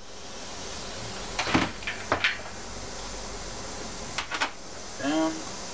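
Light metallic clicks and knocks as parts are handled on a stripped V6 outboard powerhead, three small clusters over a steady hiss, with a brief rising whine just after five seconds.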